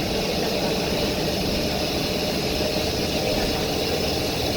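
Inside a Volvo B9TL double-decker bus: the diesel engine runs steadily, with a constant loud hiss over the low engine rumble.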